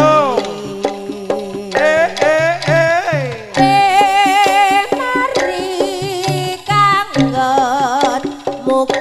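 Javanese jaranan ensemble music played live over a sound system. Hand drums beat a busy pattern under repeated low struck notes and a high, wavering melody line.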